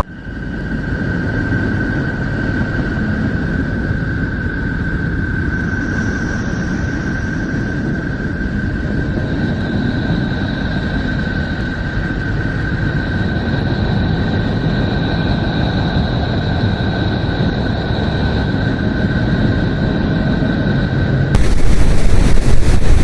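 Space sonification: a planet's electromagnetic emissions converted into audio, heard as a steady deep rumbling noise with a high whistling tone held over it and a fainter, higher tone joining partway through. About 21 seconds in it cuts suddenly to a louder, harsher noise.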